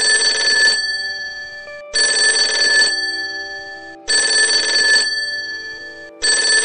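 Small quartz alarm clock going off, ringing in bursts just under a second long, about every two seconds.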